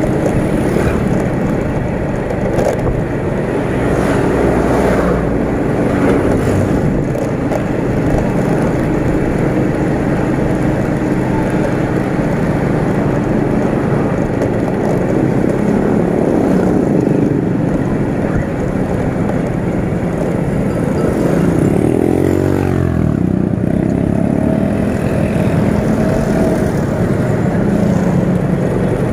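Riding a motorcycle through town traffic: the bike's engine running steadily under road and wind noise, with other motorcycles and trucks around it. About two-thirds of the way through, an engine's pitch rises and then falls.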